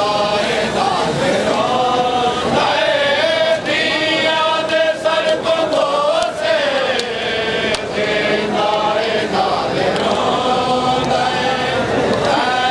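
Male voices chanting a noha (Shia lament) in a slow, drawn-out melody, a lead reciter with mourners joining in. Sharp slaps, typical of chest-beating matam, come in the middle and near the end.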